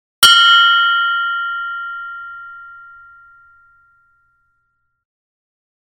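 A mindfulness bell struck once, about a quarter second in: a bright ringing tone with several overtones that dies away slowly over about four seconds.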